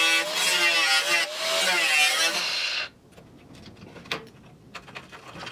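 Angle grinder with a cut-off disc cutting through the rusty sheet steel of a car's inner sill, its whine wavering in pitch as the disc bites, cutting off suddenly about three seconds in. A few light metallic clicks follow as the cut-out piece is worked loose.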